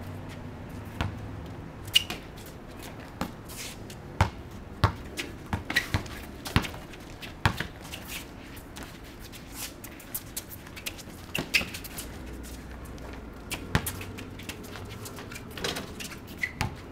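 Basketball bouncing on a concrete court with sneakers scuffing, heard as a string of irregular sharp knocks.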